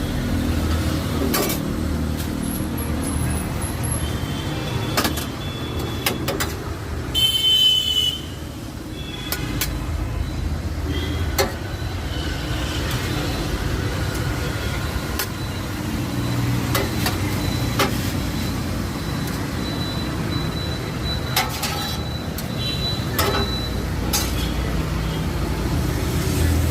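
Steady road-traffic rumble with scattered clicks and knocks, and a brief high-pitched sound about seven seconds in.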